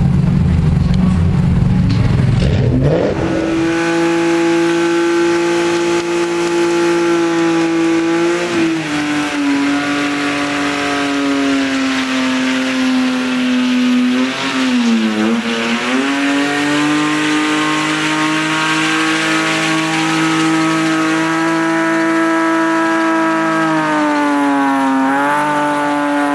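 Drift car engine held at high revs. A low rumble for the first few seconds gives way to a loud, sustained high engine note, with brief dips in pitch three times as the throttle is eased and reapplied.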